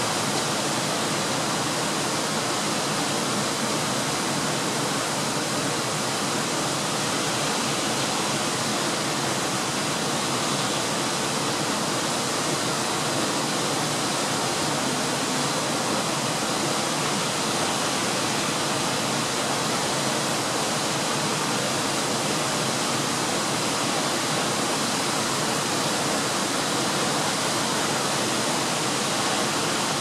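Siklawa waterfall, water pouring down a series of rock steps in a steady, even rush that does not change.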